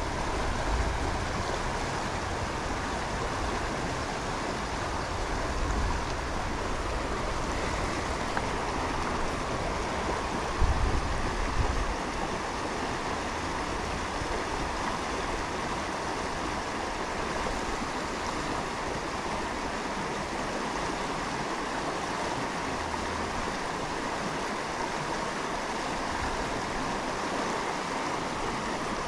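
Steady rush of a shallow mountain river running over a rocky riffle, with low rumbles a few times, the strongest about ten seconds in.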